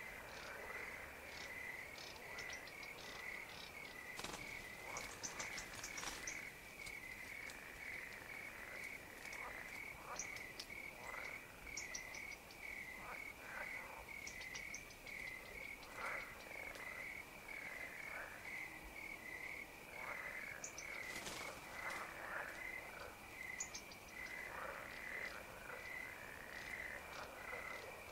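Evening pond chorus of frogs and crickets. A steady pulsing call repeats about twice a second, with scattered short frog calls and high insect chirps over it.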